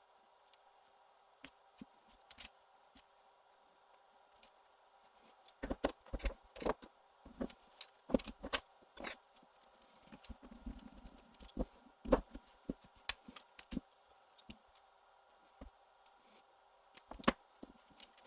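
Small hard parts and tools clicking and clinking as RC truck differential and bulkhead parts are handled on a workbench. The clicks come in irregular clusters, busiest about six to nine seconds in.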